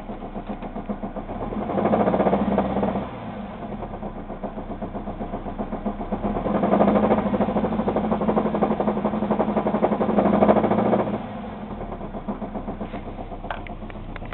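Chevrolet Cavalier four-cylinder engine idling with a rhythmic knock from a spun bearing, revved up twice: briefly about two seconds in, then held for several seconds from about six to eleven seconds in, before settling back to idle. The engine is running with no oil pressure.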